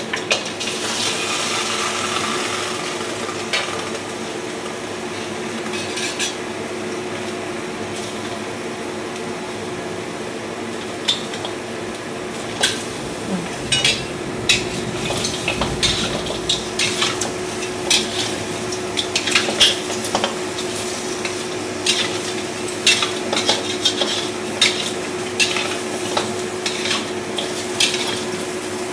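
Wet blanched pork trotters sizzling in a hot, dry stainless-steel wok while their water is cooked off, as a metal spatula turns them, scraping and clinking against the wok more often from about halfway through. A steady low hum runs underneath.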